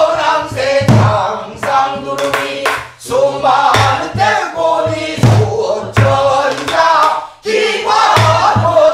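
Several women's voices singing pansori together, with the steady strokes of Korean barrel drums (buk) keeping the jangdan rhythm beneath the song.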